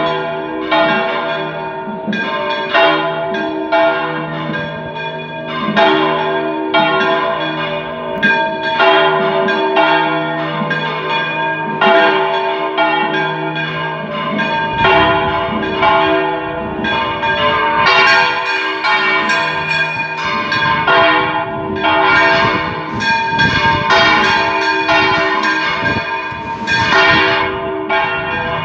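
Three church bells (81, 244 and 927 kg, tuned G, C and F) swung full-circle in a general volteo, striking in a rapid, overlapping, irregular rhythm with their tones ringing on. The peal grows denser and fuller from about halfway through.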